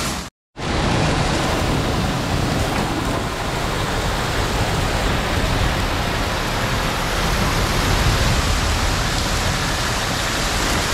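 Steady hiss of water spray hosing down a jeep at a car wash, over a low rumble.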